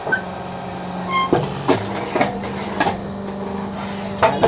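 Fly ash brick press with its electric motor and hydraulic pump humming steadily, and several sharp metal clanks as the hydraulic levers are worked. A short high squeal about a second in.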